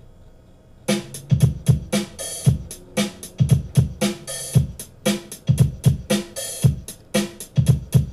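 Song intro: a steady kick, snare and hi-hat drum beat that starts abruptly about a second in, after a faint low hum.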